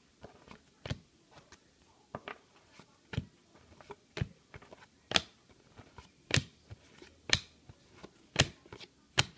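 A stack of cardboard basketball trading cards being flipped through by hand one card at a time, with a sharp card click about once a second as each card is moved.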